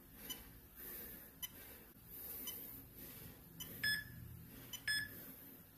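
Two short electronic beeps about a second apart near the end, an interval timer counting down to the next work interval, over low room noise with a few faint clicks.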